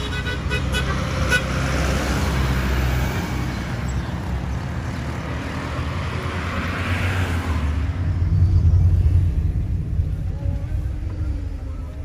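Street traffic: a steady low rumble of cars and minibuses, swelling as a vehicle passes about eight seconds in. Short horn toots and a quick run of clicks sound near the start.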